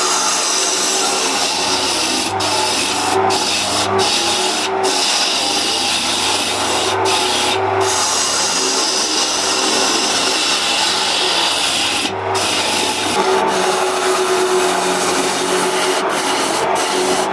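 A turning tool cutting a spinning pine-and-walnut vase blank on a wood lathe: a steady scraping hiss of the steel on the wood over the faint hum of the lathe, broken by a few very short gaps.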